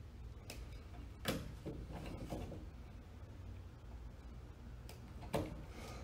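Hand wire strippers closing on electrical wires and pulling the insulation off their ends: a few faint clicks and rustles, the sharpest about a second in and two more near the end.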